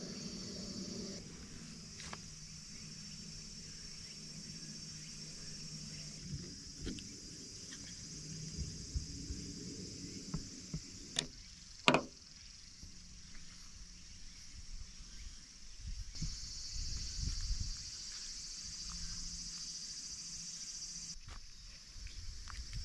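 High, steady insect buzzing in summer woodland that drops out and comes back at cuts, with small handling clicks throughout. About twelve seconds in comes one sharp clack, the loudest sound: the strong magnet hook snapping against the car's steel back door.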